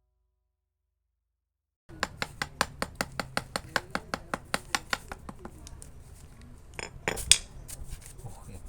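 Metal hand tool clicking sharply against the wood in a fast, even run of about six clicks a second, then softer, irregular clicks and one loud knock near the end.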